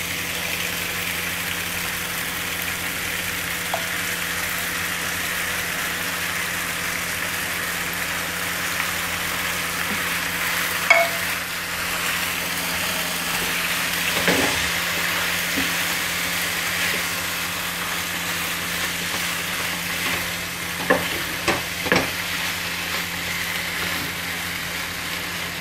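Cheese-sauced pasta sizzling steadily in a hot nonstick pan as a silicone spatula stirs and folds it, with a few sharp knocks of the spatula against the pan. A steady low hum runs underneath.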